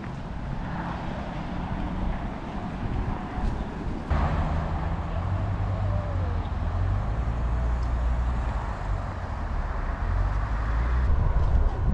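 Street ambience dominated by the low rumble of passing motor traffic, stepping up abruptly about four seconds in.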